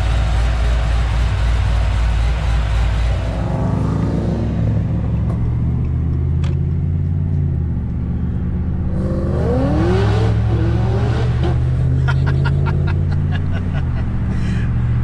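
Whipple-supercharged V8 of a 2011 Camaro SS running, first heard idling with the hood open. About three seconds in the sound changes to a steady low drone from inside the cabin as the car drives at cruising speed.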